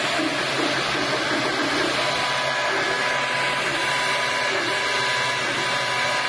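MakerBot Replicator 2 desktop 3D printer running a print: a steady motor whir, with short whining tones that keep changing pitch as the print head moves.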